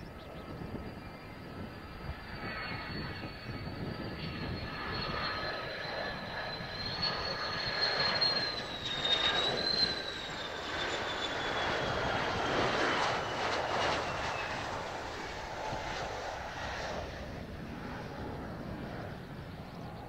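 Mitsubishi F-2 fighter's F110 turbofan on landing approach, passing close by. Its high whine slides slowly down in pitch and is loudest about halfway through, fading again toward the end.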